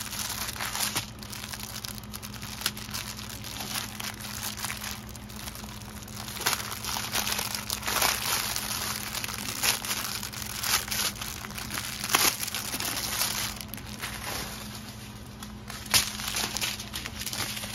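Thin plastic bags of diamond-painting drills crinkling as they are handled, with a few sharper crackles.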